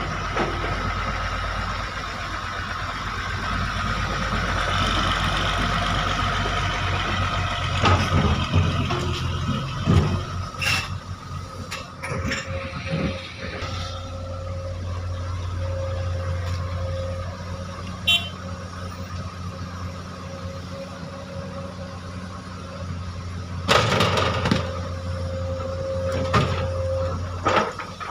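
Excavator's diesel engine running steadily, with several loud knocks as boulders strike the steel bed of a dump truck during loading. A steady whine runs through the second half.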